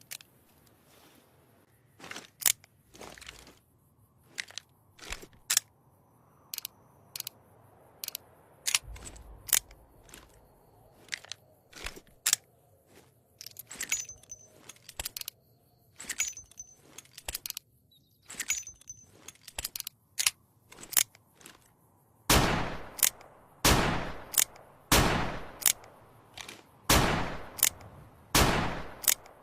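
Colt Navy revolver sound effect: a long run of short, sharp clicks, then, about three quarters of the way in, a string of loud gunshots roughly a second apart, each with a ringing tail.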